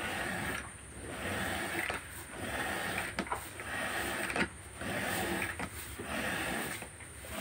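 Hand milking a cow into a plastic bucket: milk squirting from the teats into foamy milk, a rhythmic swishing that repeats a little slower than once a second.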